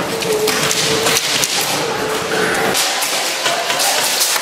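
Airsoft gunfire in an indoor arena: a dense, irregular run of sharp clicks and snaps from shots and BBs striking hard surfaces.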